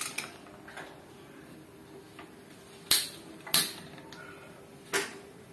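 Three sharp clicks from a hand-held spark gas lighter striking to light the gas stove burner under a pressure cooker. The first two come about half a second apart, the third about a second and a half later.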